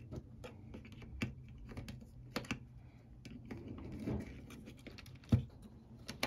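Small plastic clicks and taps as a battery is slid into a Canon EOS M mirrorless camera's battery compartment and the battery door is handled, with the loudest click about five seconds in.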